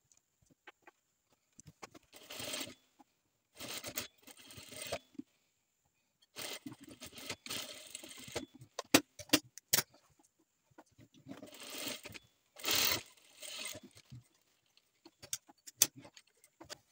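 IDAM industrial sewing machine stitching a seam in four short runs of one to two seconds each, with a few sharp clicks between the runs.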